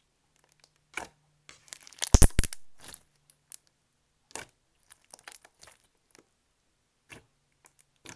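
Thick clear slime with beads squished and poked by fingers, giving irregular bubble pops and crackles, with a loud run of pops about two seconds in.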